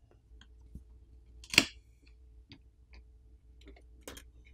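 Scattered light clicks and taps of a plastic pry pick and fingertips against a smartphone's adhesive-held lithium-polymer battery and frame as the battery is pried loose, with one sharper click about a second and a half in.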